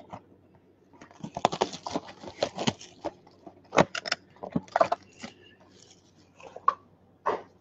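Plastic shrink-wrap crinkling and tearing as a sealed trading-card box is unwrapped and its cardboard lid pulled open, densest in the first few seconds, with scattered crackles after.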